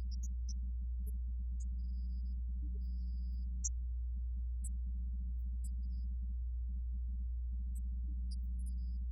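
Steady low electrical hum, with a faint flickering buzz just above it and no voices or music: the kind of mains hum an audio feed carries when nothing else is coming through.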